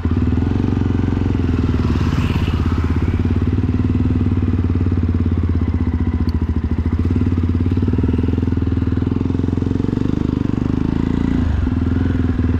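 Motorcycle engine running close to the microphone with a steady, rapid exhaust beat, dipping briefly near the end.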